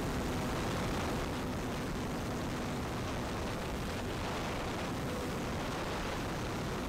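Steady rushing wind over a wing-mounted camera's microphone as the electric E-flite Cessna 150 Carbon-Z RC plane flies. Under it is a faint hum from the motor and propeller that fades about three seconds in.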